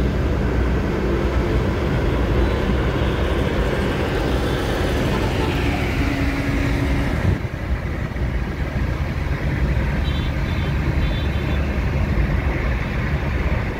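Steady road and engine noise heard inside a moving car's cabin. A falling whoosh comes around five to seven seconds in, and the high hiss drops off suddenly just after.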